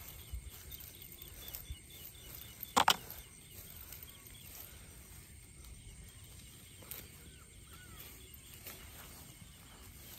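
Quiet outdoor ambience with faint rustling and ticking as a nylon cast net is handled on grass, and one short, louder rustle or knock about three seconds in.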